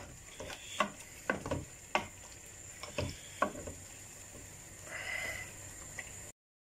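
Wooden spoon stirring fish masala in an aluminium pot, knocking against the pot several times, over a low steady sizzle of the curry frying on a high gas flame. The sound cuts off shortly before the end.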